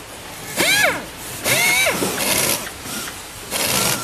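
Handheld pneumatic tool run in four short bursts, each a hiss of air with a whine that rises and falls as the tool spins up and stops.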